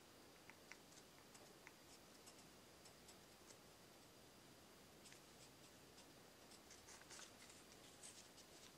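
Very quiet small clicks and taps of fingertips on a hard urushi-lacquered wooden handle, scattered at first and bunching into short clusters about five and seven seconds in, over faint room hiss.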